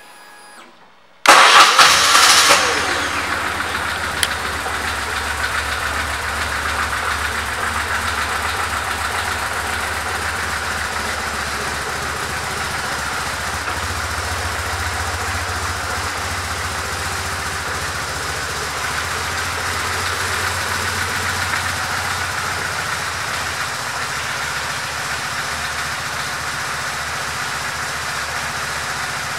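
2003 BMW R1150R's boxer twin starting about a second in, flaring briefly and dropping in pitch as it settles, then idling steadily.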